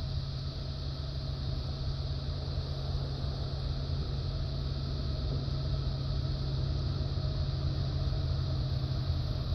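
Steady low rumble and hum of freight-train diesel locomotive engines, growing slowly louder.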